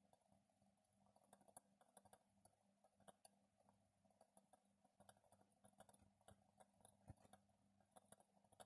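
Very faint steady AC hum from a Meccano-built synchronous motor's coils as it runs, with scattered light irregular clicks from the spinning rotor mechanism.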